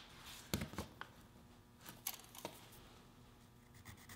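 A few faint, scattered taps and clicks from a tape measure and pencil being handled against an MDF panel, with quiet room tone between them.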